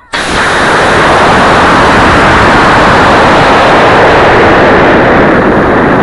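Model rocket motor igniting a split second in, then a loud, steady rush of noise as the rocket boosts and climbs, heard from a camera riding on the rocket: motor exhaust and air rushing over the microphone, loud enough to reach full scale.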